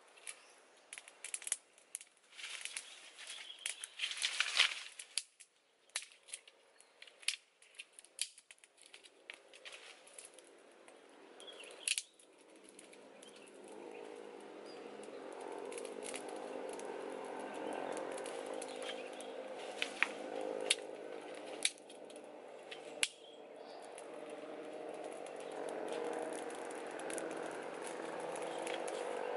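A man blowing on a small wood cooking fire to get it going, with twig snaps and fire crackles in short sharp clicks; the loudest blowing comes about four seconds in. From about halfway a steady low hum rises and continues under a few more sharp crackles.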